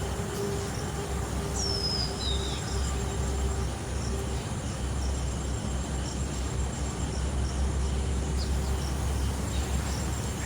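Rural outdoor ambience: insects chirping steadily over a low rumble, with a bird's short falling whistle about a second and a half in.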